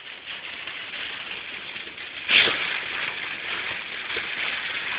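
Car driving through a heavy rainstorm, heard from inside the cabin: a steady rushing hiss of tyres through standing water and rain on the car. About two seconds in there is a sudden louder surge of water noise that fades over about a second.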